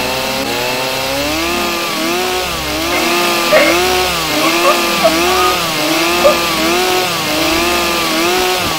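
Chainsaw engine revving: its pitch climbs over the first two seconds, then it revs up and down in a steady rhythm about one and a half times a second.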